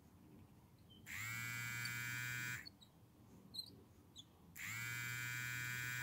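Fishing reel cranked fast in two bursts of about a second and a half each, a steady gear whine that rises briefly in pitch as each burst starts: a stop-and-go lure retrieve.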